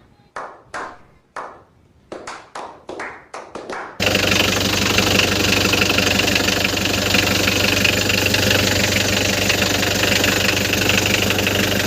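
About ten sharp taps in quick succession, then a Hyundai Grace van's engine comes in suddenly about four seconds in and runs at a steady idle. It started on the first turn of the key, which was the test after replacing the fuel filter and pump to cure hard starting.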